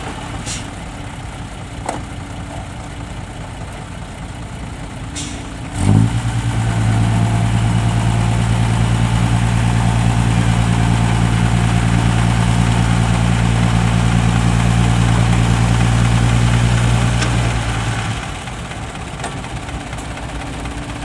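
Isuzu Deca 195 dump truck's diesel engine idling, then revved up sharply about six seconds in and held at a steady higher speed for about twelve seconds before dropping back to idle.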